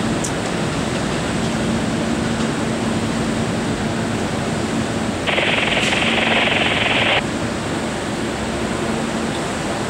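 A Kawasaki R68A subway train standing at a station, its onboard equipment giving a steady hum. About five seconds in, a sharp hiss of air starts suddenly, lasts about two seconds and cuts off.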